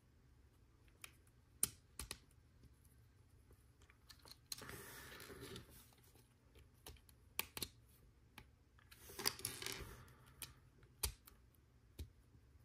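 Small plastic LEGO Technic pieces clicking sharply as they are fitted and pressed together by hand, with scattered single clicks and two longer shuffling stretches as loose pieces are handled.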